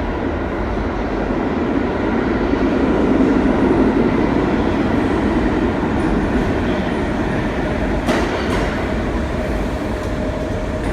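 Subway train moving along the platform, a loud continuous rumble of wheels and motors that swells about four seconds in and then eases a little.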